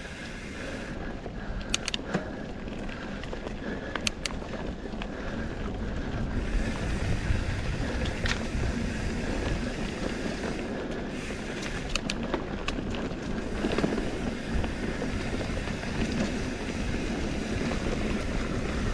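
Lynskey Live Wire SL titanium mountain bike riding down dirt singletrack: a steady rumble of tyres on the trail mixed with wind buffeting the camera microphone, with scattered sharp clicks and rattles from the bike.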